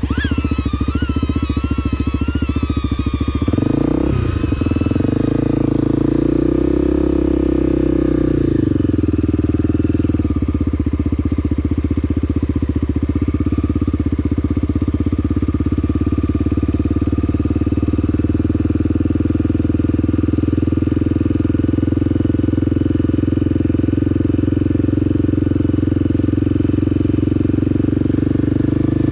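Single-cylinder four-stroke engine of a 1994 Honda XR250L dirt bike, revving up a few seconds in and then running steadily as the bike is ridden. A high wavering whine is heard at first and fades within the first five seconds.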